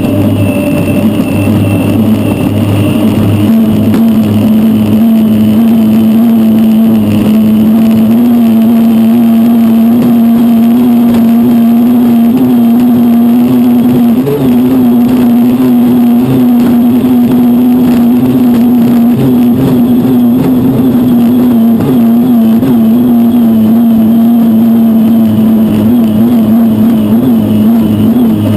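Unlimited hydroplane's turbine engine running at racing speed, heard from a camera mounted on the boat: a loud steady drone mixed with rushing wind and spray, with a brief dip about fourteen seconds in.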